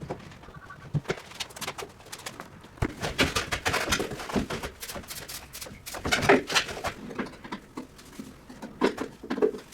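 Irregular knocks, clatter and scraping of hand work: fittings and boards being handled and taken off, with the loudest knock about six seconds in.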